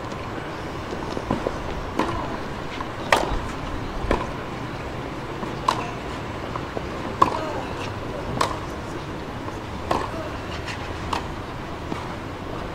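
Tennis rally: a ball struck back and forth with rackets, about ten sharp hits one every second or so, with softer ticks between, over a steady background murmur.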